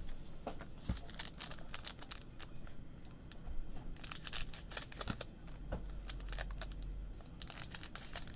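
Scissors cutting open shiny trading-card pack wrappers, with the wrappers crinkling as they are handled. It comes as crackly clicking in spells about a second in, around four seconds in and near the end.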